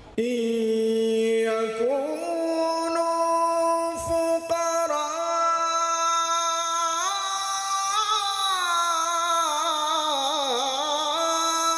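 A man's solo voice chanting a slow, melismatic religious melody into a microphone, unaccompanied, with long held notes and wavering ornaments near the end. It starts abruptly and breaks off briefly about four seconds in.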